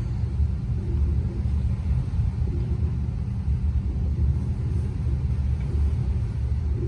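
Motor yacht under way, a steady low engine and hull rumble heard from inside the enclosed cabin behind glass.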